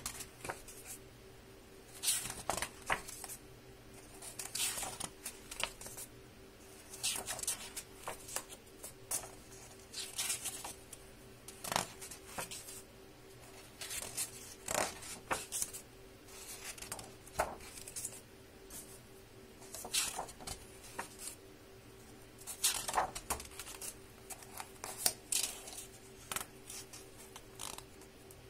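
Paper pages of a hardbound book being turned one after another, each turn a brief rustle and flip, roughly every two to three seconds, over a faint steady hum.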